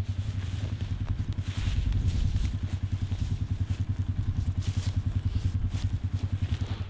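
Vehicle engine idling with a steady, fast low throb, with brief swishes of footsteps through grass over it.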